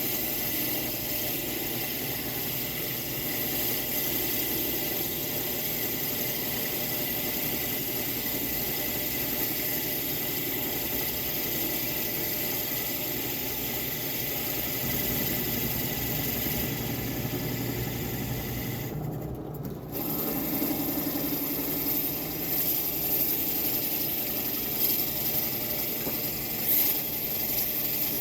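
A small power tool running steadily with a hiss and a few steady tones, probably while working wood. It breaks off briefly about two-thirds of the way through, then carries on with a few louder moments.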